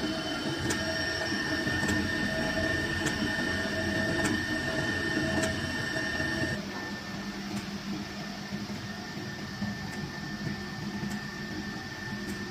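Horizontal ribbon blender running with a load of powder: a steady machine hum with a thin whine over it and a light tick about once a second as the ribbon shafts turn. The level drops a little about halfway through.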